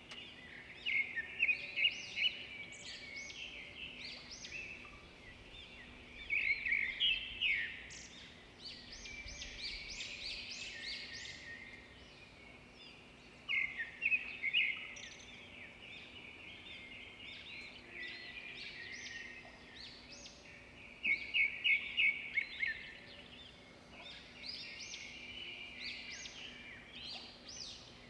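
Birds chirping and trilling, with about four louder bursts of rapid chirping and softer calls between them, over a faint steady low hum.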